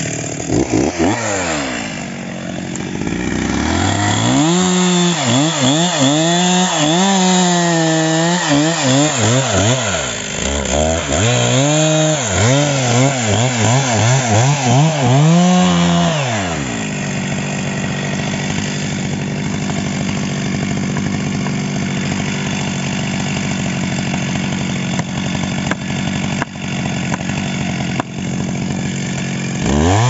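Two-stroke chainsaw cutting into the trunk of a dead standing pine. For the first half its engine note wavers up and down as it works in the cut, then it runs steadier, and it revs up again at the very end.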